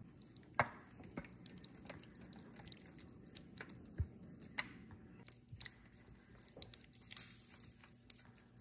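Thick, wet soya-chunk masala being scraped out of a pan into a baking tray and spread with a wooden spatula. It makes faint squelches, with light knocks and scrapes of the spatula against the tray and a few sharper knocks.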